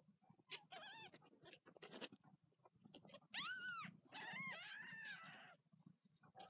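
Week-old kittens mewing in high, thin cries as their mother lies on top of them: a faint call about a second in, then a louder one about three and a half seconds in, followed by a longer one.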